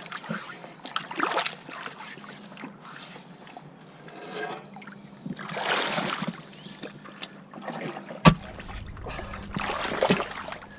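River water splashing and sloshing around people working in the water, with two longer swishes about six and ten seconds in and a single sharp knock shortly after eight seconds.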